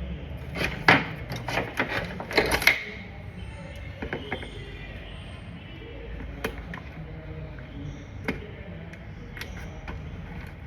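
Sharp clicks and knocks of small parts and tools being handled during hands-on repair work. They come in a quick cluster in the first three seconds, then as a few single clicks spread through the rest.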